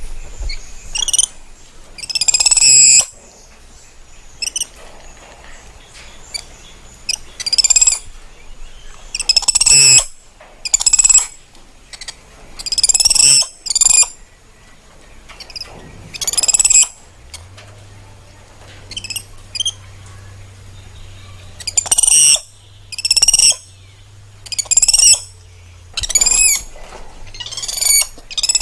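Spider monkey giving a series of high-pitched chirping calls, each under a second or so and wavering in pitch, repeated irregularly every second or two.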